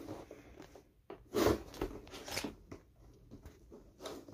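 Cardboard-and-clear-plastic toy box handled and picked at by fingers trying to open it: a few short crinkling, scraping bursts, the loudest about a second and a half in.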